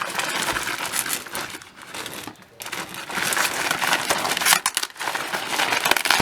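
A cardboard box and its packaging being forced and torn open by hand: dense crinkling and crunching, with a short pause about two and a half seconds in.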